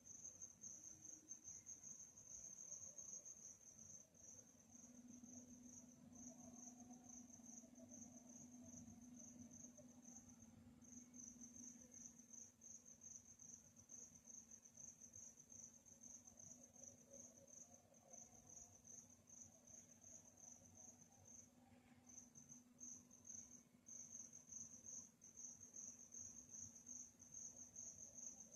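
Crickets chirping in a continuous high-pitched, pulsing trill that breaks off briefly a few times, with a faint steady low hum beneath.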